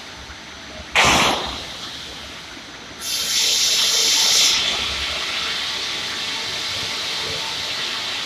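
Sawmill machinery of a cant-sizing line: a sharp bang about a second in, then a loud hiss starting about three seconds in that eases after a second and a half into a steady running noise.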